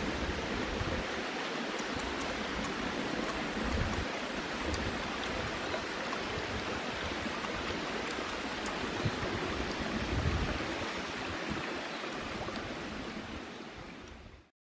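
Shallow stream running over stones, a steady rush of water that fades out near the end.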